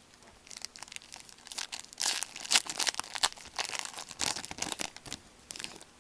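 Wrapper of a 2011-12 Contenders hockey card pack being torn open and crinkled in the hands, with a quick run of sharp crackles that is thickest in the middle and dies off near the end.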